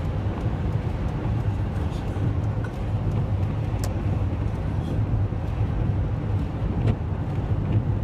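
Steady road noise heard from inside a moving car: a continuous low rumble of tyres and engine on a snow-covered, slushy highway, with a couple of light ticks.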